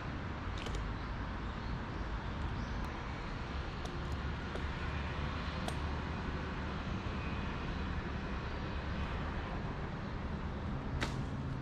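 Steady low outdoor rumble and hiss, with a few scattered light clicks and a sharper click near the end.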